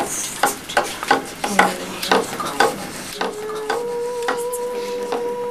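Wood fire crackling in an open hearth: sharp irregular pops, about two a second. About three seconds in, a steady held note starts and carries on under the crackle.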